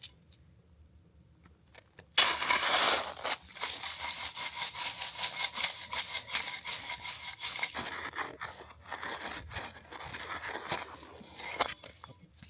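A frying pan being scraped and scrubbed clean of cooked-on steak residue: rapid, repeated scraping strokes that start about two seconds in and keep going, fading off near the end.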